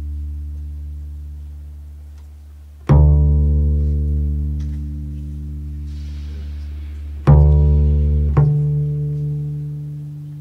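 Double bass played pizzicato in a slow, sparse line: a low plucked note about three seconds in, then two more in quick succession after about seven seconds, each left to ring and fade.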